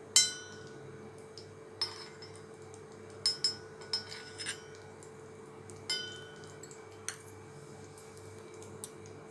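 A metal spoon clinking against the cavities of a hot paniyaram pan while ghee is spooned into each hollow. There are about eight short ringing clinks, the loudest at the start and a quick run of four around the middle, over a steady low hum.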